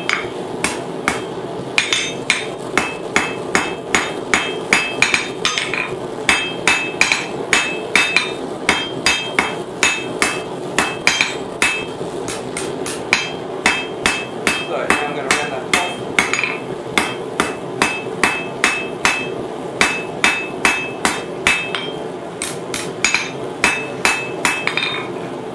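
Hand hammer striking hot 10 mm steel rod on an anvil while forging the neck of a small spoon. Runs of about three blows a second, each with a bright metallic ring, are broken by brief pauses, over a steady low hum.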